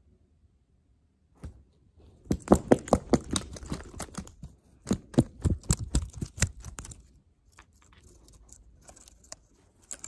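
Handling noise from a plush toy being bounced and shuffled about: a fast run of sharp taps and rustles starting about a second and a half in, thinning out to fainter ones near the end as the toy brushes against the recording phone.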